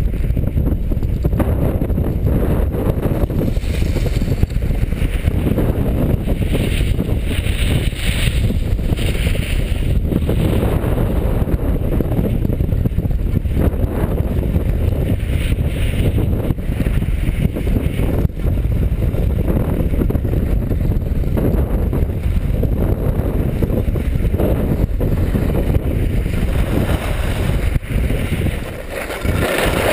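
Wind buffeting an action camera's microphone as the wearer skis downhill, a loud steady rumble. Over it, the hiss of skis sliding and carving on packed snow comes and goes.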